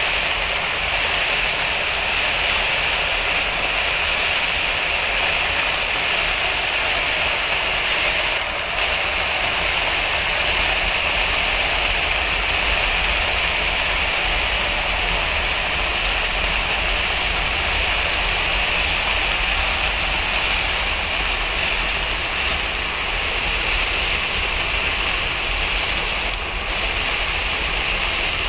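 Frozen bitter gourd slices sautéing in a pan, sizzling and steaming steadily, with a couple of faint knocks of a wooden spatula.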